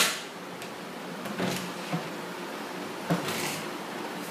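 Handling noises close to the microphone: a sharp knock at the start, then two short scraping rustles, each with a click, about a second and a half and three seconds in, over a steady hiss.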